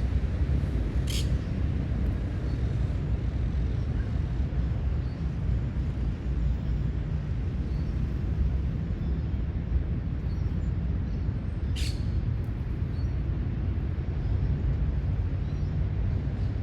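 Outdoor city-park ambience: a steady low rumble throughout, with two short high chirps, one about a second in and one about twelve seconds in.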